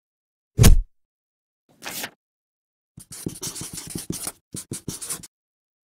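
A single heavy thump under a second in, a brief rushing sound at about two seconds, then a marker pen scratching on paper in many quick strokes for about two seconds, writing out words.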